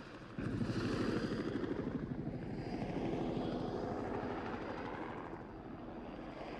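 Helicopter flying low and passing close, its rotor blades beating rapidly over the engine noise. The sound jumps louder about half a second in, then slowly fades.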